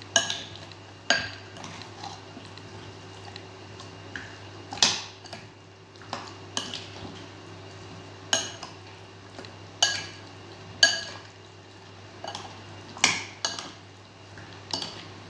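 A metal spoon clinking against a glass mixing bowl as chicken pieces are stirred into a yogurt-and-spice marinade: about ten sharp clinks at uneven intervals.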